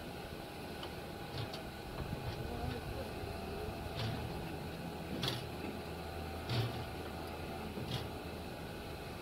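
A pickup truck being pushed by hand down off a car trailer: a low steady hum with a few scattered clicks and knocks from the truck and trailer as it edges forward.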